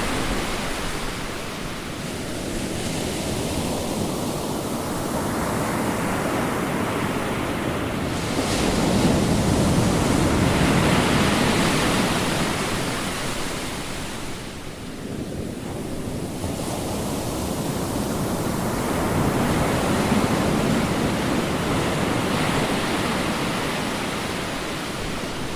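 Ocean surf: waves breaking and washing up as a steady rush of noise that swells and ebbs, with two big swells, one about a third of the way in and another past the middle.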